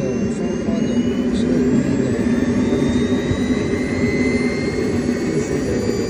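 Model jet turbine engine running: a steady rushing roar with a thin high whine that climbs slowly in pitch, as the turbine spools up.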